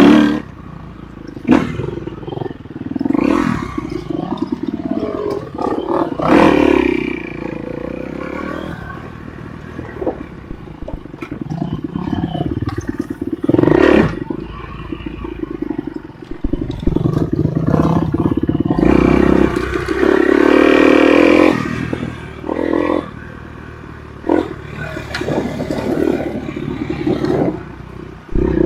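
Enduro motorcycle engine revving up and down, its pitch and loudness swelling and dropping repeatedly as the throttle is worked, with scattered sharp knocks throughout.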